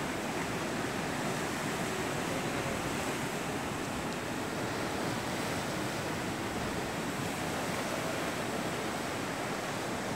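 Ocean surf washing steadily, an even wash of noise with no single breaks standing out.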